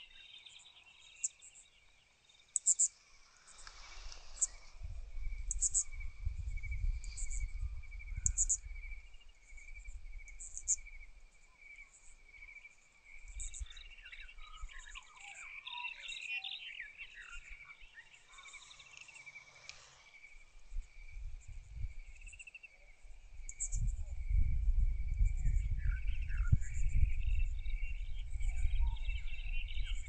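Meadow insects, crickets, trilling steadily on one high note, with short very high chirps repeating every second or so and birds calling around the middle. A low buffeting rumble on the microphone comes in twice, louder in the last few seconds.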